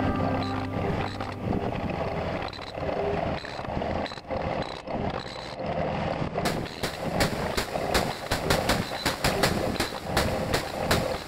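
Mini demolition excavator working, its engine running and its arm moving against broken brickwork. From about halfway through come rapid sharp clicks and knocks, about four a second.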